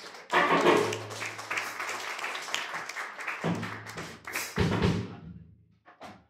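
Live band music: full, dense playing with a low bass note held twice. It dies away near the end.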